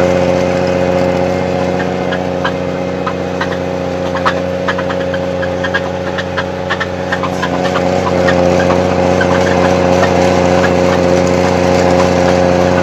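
Snowcat grooming machine's engine running steadily, with scattered clicks and rattles through the middle stretch.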